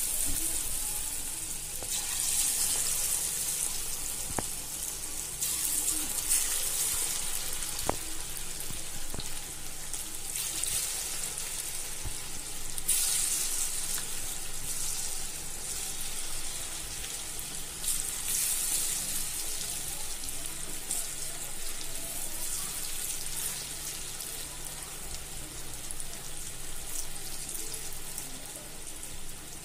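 Battered chicken pieces deep-frying in hot oil in a kadai: a steady, hissing sizzle that swells several times.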